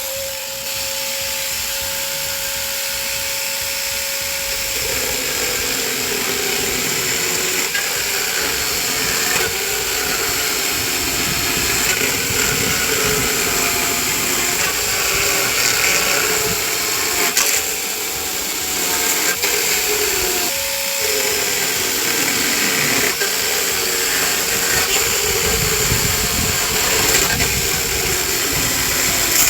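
Chainsaw running at a steady high rev for about five seconds, then cutting into pallet wood, its pitch sagging and wavering under load. About two-thirds of the way through it briefly frees up and revs back to full pitch.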